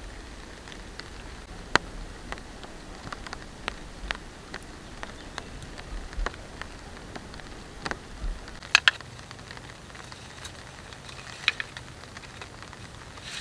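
Rain drips tapping on a tarp overhead: sparse, irregular sharp drops over a faint steady hiss, a few louder ones standing out.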